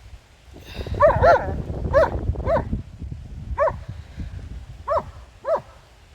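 A dog barking in about seven short, fairly high-pitched barks spread over a few seconds, over a low rumble of wind or handling noise.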